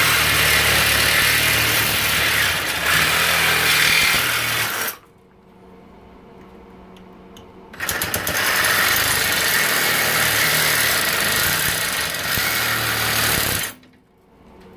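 Reciprocating saw cutting through an aluminum bicycle rim, in two runs of about five and six seconds with a pause of about three seconds between them.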